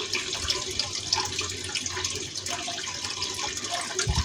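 Running water trickling and splashing steadily, with a soft low thump near the end.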